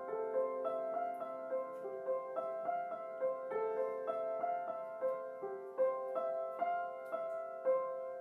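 Soft piano music: a slow run of single struck notes that ring on into each other, without a steady beat.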